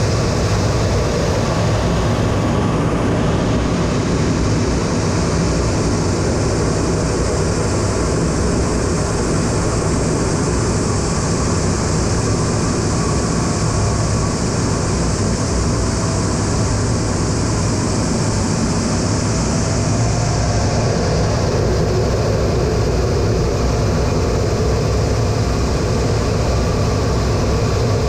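Steady in-flight cockpit noise of a US Air Force A-10 Thunderbolt II: the continuous drone of its twin General Electric TF34 turbofan engines mixed with rushing air.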